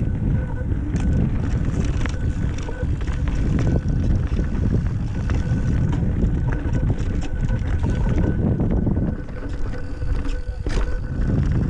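Wind rumbling over the camera microphone as an Intense Primer mountain bike rides fast down a rough dirt trail, with tyre noise and frequent rattles and knocks from the bike over rocks and bumps. The rush eases briefly near the end.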